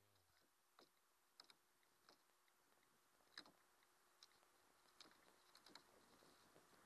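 Near silence with faint hiss and about ten faint, scattered clicks and light taps.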